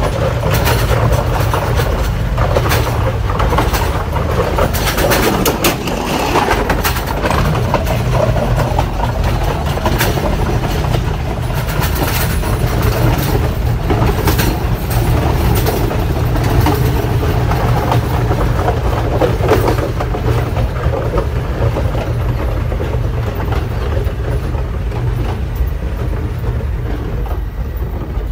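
Train running on the rails, heard from on board: a steady low rumble with irregular clicks and rattles from the wheels and carriage. The rattle thins out near the end.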